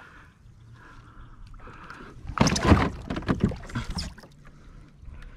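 A hooked largemouth bass thrashing at the surface beside a kayak, a run of loud splashes from about halfway through.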